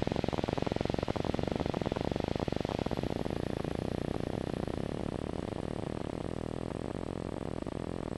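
Light aircraft's engine and propeller running with rapid pulsing, then throttled back about halfway through to a quieter, steadier idle as the aircraft comes over the runway to land.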